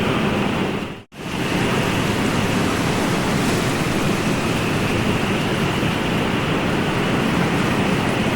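Steady rushing wash of ocean surf, with a brief fade to silence about a second in before it returns.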